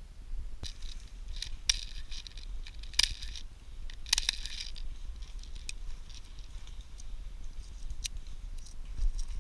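Irregular crackling and rustling, as of dry leaves and twigs, with several sharp clicks, the loudest about three seconds in. It is busiest in the first half and thins out later, over a steady low rumble.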